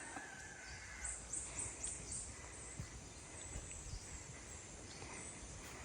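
Faint outdoor ambience with a quick run of four or five short, high chirps from an animal about a second in.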